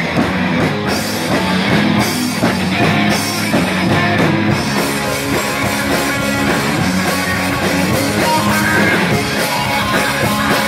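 Rock band playing an instrumental passage of a song, with distorted electric guitars and a drum kit, between sung choruses.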